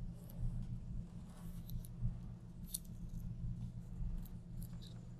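Tape being pulled and pressed down over a sheet of paper on a table: scattered small crackles and clicks of tape and paper, over a steady low hum.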